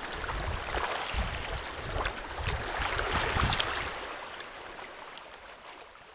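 Water splashing and sloshing as a fish thrashes at the surface, with a run of small slaps, then fading out near the end.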